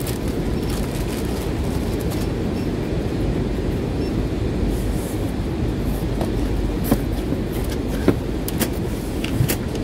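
Steady low rumble of packing-warehouse machinery and conveyors. In the second half a few sharp knocks and clicks come as a cardboard box and packages are handled on the packing bench.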